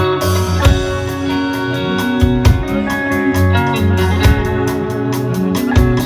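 Band music with no singing: held keyboard chords over guitar, bass and drums, with a cymbal crash just after it begins.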